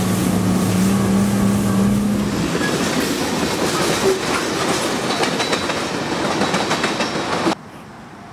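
A bass boat's outboard motor running steadily for the first couple of seconds. Then a train passing a railroad crossing, its wheels clacking rapidly over the rail joints, until the sound cuts off abruptly to a much quieter background near the end.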